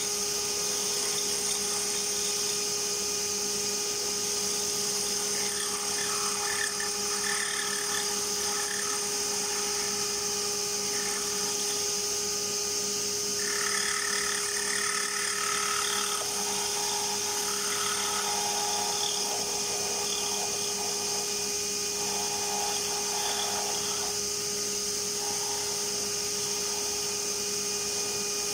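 JET wood lathe running, its motor giving a steady whine. A hand tool held against the spinning wooden lure blank adds rougher patches of shaping noise that come and go through the middle.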